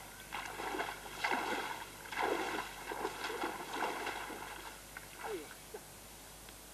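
Legs in rubber waders sloshing through shallow pond water, one splashing stride about every second. The splashing dies away about four to five seconds in, leaving only faint outdoor background.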